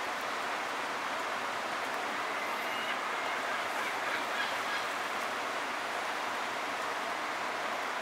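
Steady rush of flowing creek water, with a few faint, short bird calls about three to five seconds in.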